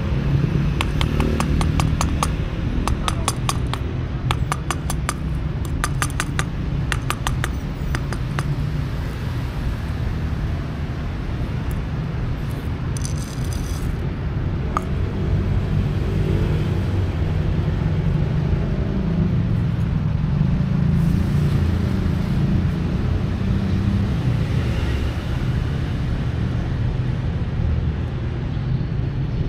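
Steady low rumble of street traffic, with a quick run of clicks over the first eight seconds as dry cat food is tipped out of a small cup onto paving stones.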